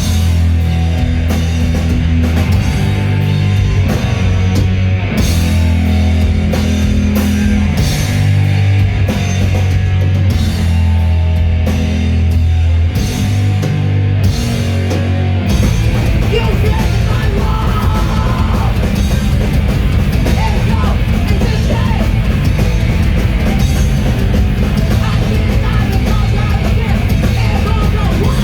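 Loud live rock music with distorted guitars, bass and drums, shifting about halfway through from held heavy bass chords to a faster, denser, driving section with shouted vocals.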